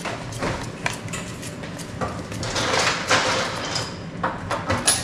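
Paring knife peeling a green ambarella by hand: a run of short scraping strokes of the blade over the firm skin, with small clicks, and one longer scrape a little before the middle.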